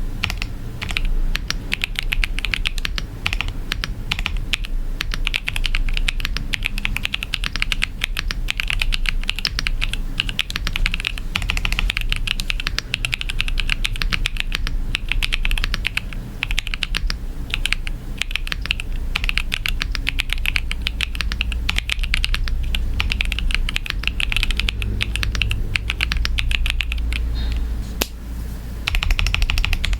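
Continuous fast typing on a Press Play Essential 75 mechanical keyboard with linear switches and PBT Cherry-profile keycaps: a dense stream of keystrokes, with a brief lull near the end.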